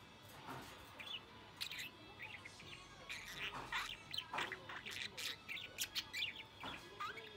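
Budgerigar chattering: a fast run of short chirps, clicks and quick whistles, starting about a second in. It is the excited warble of a happy budgie that sounds close to forming words but doesn't quite.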